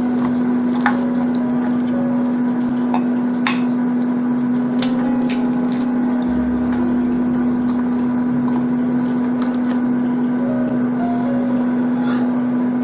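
Eggs being cracked into a ceramic bowl: a few sharp cracks and taps of eggshell against the bowl. Under them runs a loud, steady low hum.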